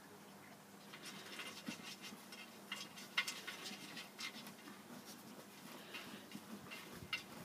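Yorkshire terrier digging in the soil of a plant pot: irregular scratching and rustling of paws in compost, starting about a second in.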